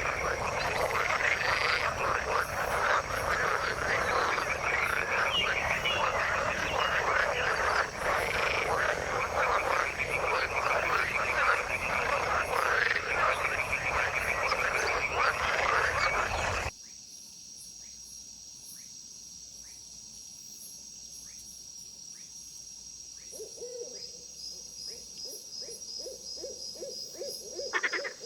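Dense chorus of many frogs calling over one another. It cuts off suddenly partway through, giving way to a quieter scene of sparse, regular clicking calls over a steady high whine. Near the end, a repeated low croak joins in.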